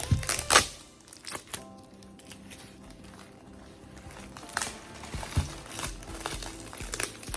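Background music, with packaging crinkling and rustling in short bursts, loudest in the first second.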